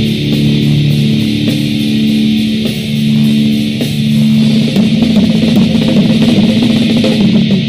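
Heavy metal band on a demo-tape recording: a distorted electric guitar riff of long held low notes, turning into busier riffing about halfway through.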